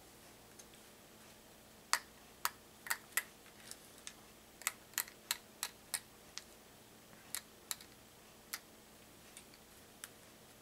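Lead .32 caliber buckshot pellets dropped one at a time into a shotshell wad, an irregular series of sharp clicks starting about two seconds in.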